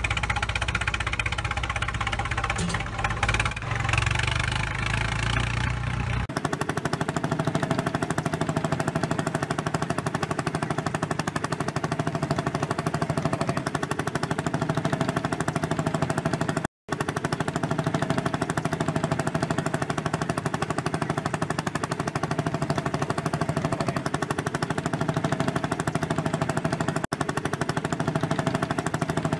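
Tractor engine sound effect running continuously. It is deep and heavy for about the first six seconds, then switches abruptly to a fast, even pulsing, with a brief cut-out just past halfway.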